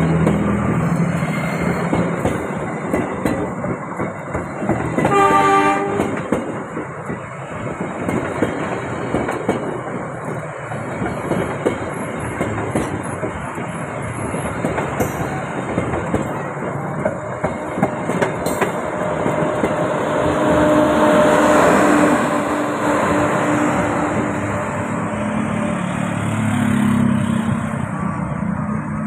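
Passenger coaches of a KAI local train rolling past at close range, wheels clacking over the rail joints under a steady rumble. A brief horn blast sounds about five seconds in, and a louder stretch with a steady tone follows around twenty seconds in.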